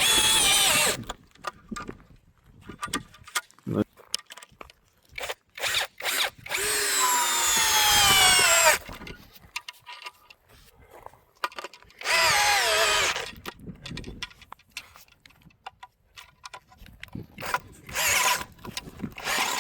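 Power drill driving screws for hammock hooks into a treated eucalyptus post, in four short runs. The longest, about two seconds in the middle, falls steadily in pitch as the motor slows under the load of the screw biting into the wood. Small clicks and handling knocks come between runs.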